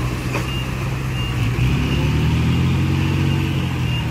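Diesel engine of a heavy earthmoving machine running under load, picking up revs a little about a second and a half in, then holding steady.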